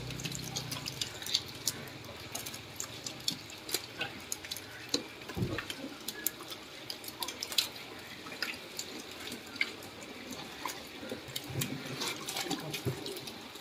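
Live hybrid magur catfish being handled by hand: wet slaps and flops on a plastic tarpaulin and into a bamboo basket, many short irregular clicks and splats.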